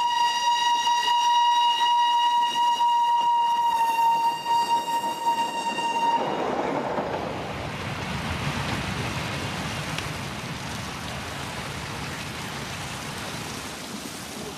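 A train whistle blows one long steady note that cuts off about six seconds in. A softer, even rumbling noise follows and slowly fades.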